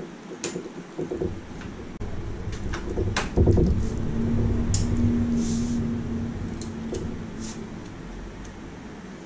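RAM modules pushed into a desktop motherboard's memory slots, the slot latches clicking several times. About three seconds in the PC powers on and its fans run with a steady hum that slowly eases off.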